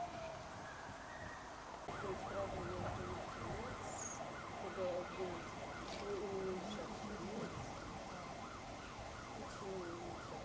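Emergency vehicle siren. A falling wail winds down in the first second, then from about two seconds in it switches to a fast yelp, sweeping up and down about three times a second. A lower siren tone wavers intermittently beneath it.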